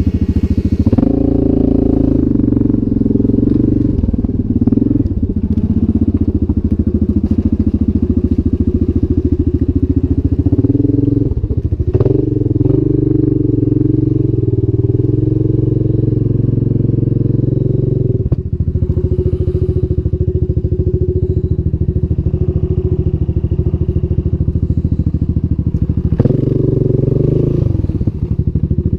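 Yamaha Grizzly 700 ATV's single-cylinder engine running loud and close under load as the quad wades through a shallow pond, the throttle opening and easing off several times, with a few short knocks.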